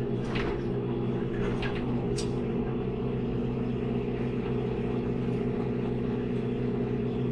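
Diesel engine of a cab tractor running steadily under load, heard from inside the cab, while a rotary mower cuts tall weeds. A few short clicks come in the first two or three seconds.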